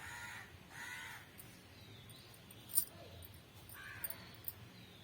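A crow cawing three times, two calls close together at the start and one more near the end. A single sharp click about three seconds in.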